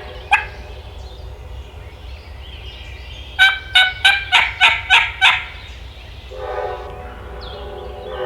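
A run of seven turkey yelps, evenly spaced at about three a second, near the middle. A train horn sounds again from about six seconds in.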